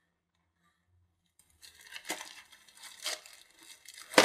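Paper and packaging rustling and crinkling as a craft kit's instruction sheet is pulled out and handled. The rustles come in uneven bursts after about a second and a half of near silence, with a sharp crackle at the end.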